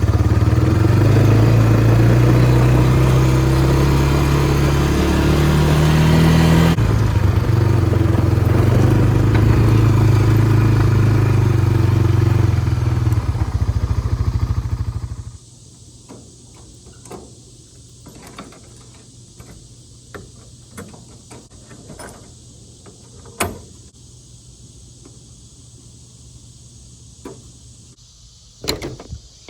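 A small car's engine running while driving, heard from inside, with a step in engine pitch about a quarter of the way through. It cuts off suddenly about halfway, leaving a much quieter stretch with scattered light clicks and ticks.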